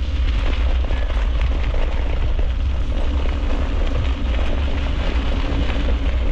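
Wind rumbling on the microphone of a camera mounted on a moving dog scooter, with tyres crunching over a gravel road as the dog pulls.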